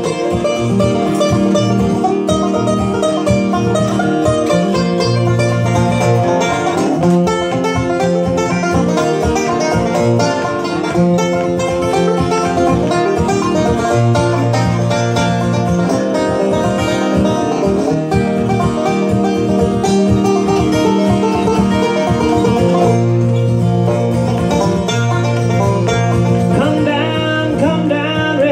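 An acoustic guitar strummed and a banjo picked, playing together in a bluegrass style.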